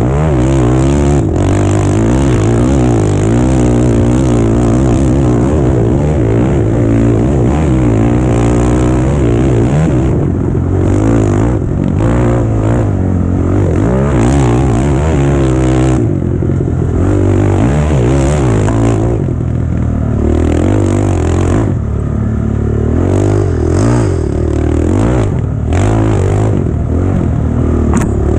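Quad (ATV) engine heard from the rider's position, revving hard and dropping repeatedly as the throttle is worked, with occasional knocks from the machine over rough ground.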